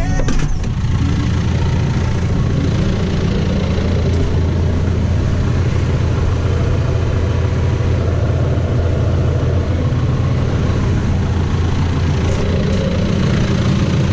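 John Deere 6125R tractor's diesel engine running steadily at an even speed.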